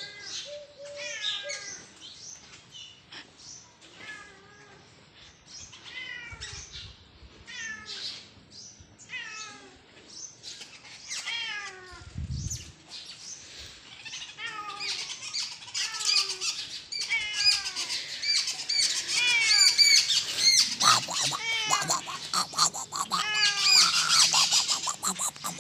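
Short, falling animal calls repeated over and over, at first spaced out and then much thicker and louder in the second half, with calls overlapping. A single low bump about halfway through.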